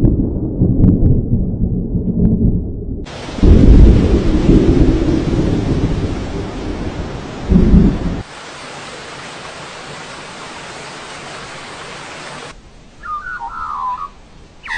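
Thunder rumbling, then heavy rain with more rolls of thunder, giving way to steady rain hiss without thunder. Near the end the rain drops away and a brief wavering chirp is heard.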